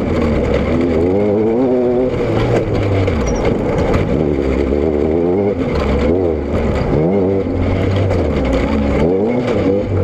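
Vehicle engine and exhaust under way, the engine note rising and falling again and again as the throttle opens and closes, over a low rumble that steps in level.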